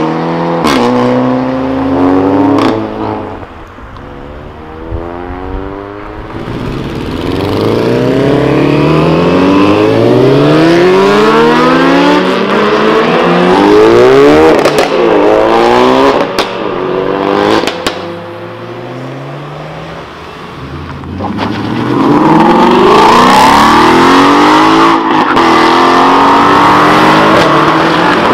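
Tuned cars, among them a VW Golf hatchback and a Ford Focus RS, accelerating hard one after another. Each engine revs up through the gears in rising sweeps, with short sharp cracks at several of the gear changes.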